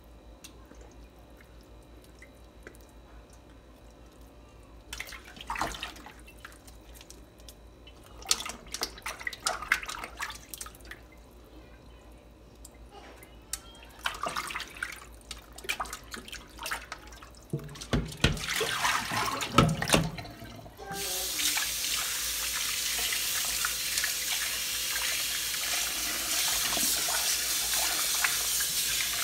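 Hands splashing and handling a raw chicken in a bowl of water in a stainless steel sink, in short irregular bursts. About two-thirds of the way through, the kitchen faucet comes on and runs steadily into the bowl over the chicken as it is rinsed.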